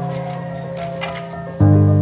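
Background classical piano music with sustained chords; a new, louder chord sounds about a second and a half in.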